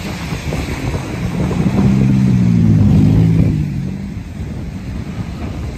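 Freight train of covered hopper cars rolling slowly past with a low rumble, wind buffeting the microphone. About a second and a half in, an engine drone swells up to be the loudest sound for a couple of seconds, then fades.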